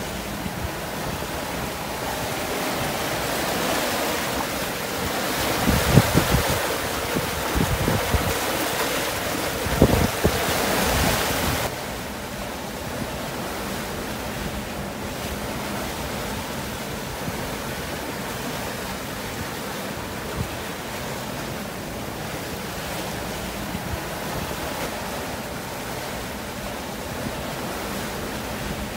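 Sailing yacht under sail at about 10 to 12 knots, water rushing and hissing along the hull in the bow wave, with wind buffeting the microphone. Louder in the first part with a couple of thumps, then it drops suddenly a little before halfway to a steadier, quieter rush of water and wind.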